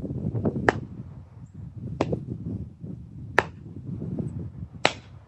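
Axe chopping into wood: four sharp strikes about a second and a half apart.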